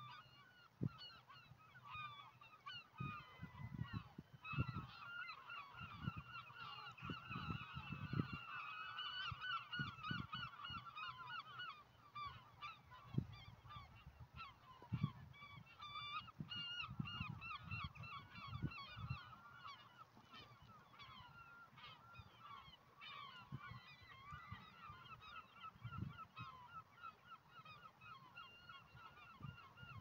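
A large flock of birds calling overhead: a dense, continuous chatter of many short overlapping calls. Irregular low thumps on the microphone come and go through it.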